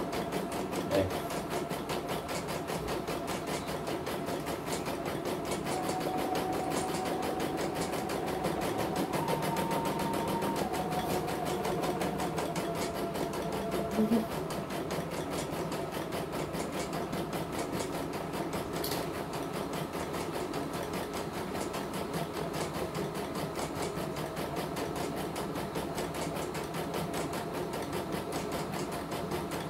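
CNY portable computerized embroidery machine stitching a design, its needle running in a fast, even rhythm. A few steady tones change pitch in steps between about 6 and 14 seconds in, and there is a brief knock about 14 seconds in.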